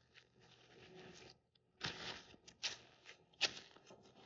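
A few quiet, irregular footsteps, the loudest about three and a half seconds in.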